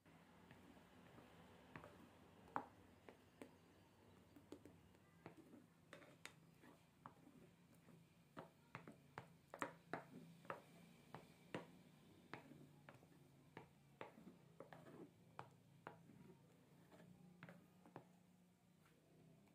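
Faint, irregular light clicks and taps of a silicone spatula against a glass mixing bowl as airy souffle-pancake batter is folded, over a low steady hum.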